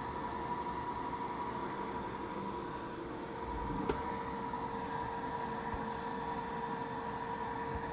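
A steady machine hum, even in level with a constant tone, and one short click about four seconds in.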